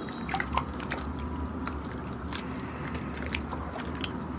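Glossy slime squeezed and pulled by hand, giving scattered wet, sticky clicks and pops, a few per second, over a faint low hum.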